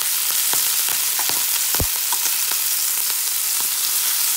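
Lamb chops and purple sprouting broccoli sizzling in butter in a hot pan, a steady hiss with scattered crackles and clicks of metal tongs as the chops are moved. There is one louder knock just under two seconds in.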